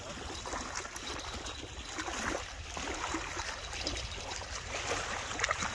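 Small waves lapping and splashing at a lake's edge, a steady trickling wash, with a low wind rumble on the microphone.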